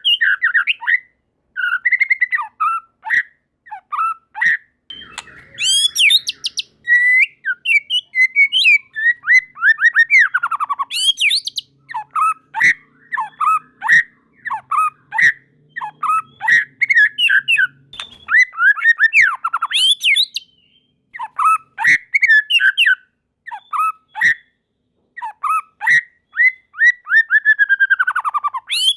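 White-rumped shama (murai batu) singing vigorously: a rapid, varied run of clear whistles, chattering notes and quick rising and falling trills, in phrases broken by brief pauses.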